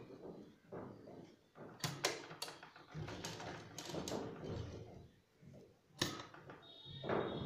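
Domestic sewing machine stitching cotton mask fabric in short, stop-start runs, with clicks and knocks from the machine's mechanism and the cloth being shifted between runs.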